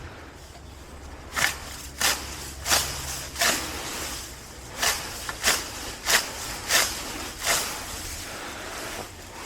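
Grass being plucked by hand from a lawn: a short rustling tear about every two-thirds of a second, with a pause near the middle.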